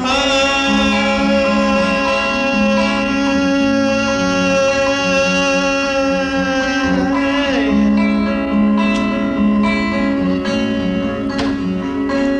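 Instrumental passage of a song: long held lead notes that slide to a new pitch about seven seconds in, over a plucked guitar and bass line.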